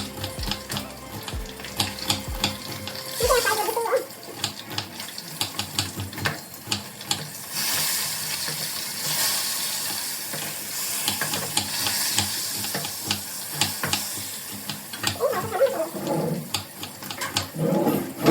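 Knife chopping on a cutting board in quick repeated taps, with a kitchen tap running for several seconds in the middle.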